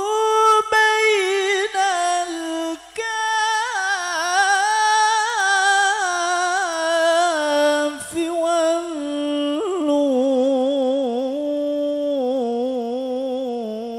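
A single voice singing a long, ornamented sholawat melody on held vowels, unaccompanied, its pitch rippling in quick turns and stepping lower over the last few seconds.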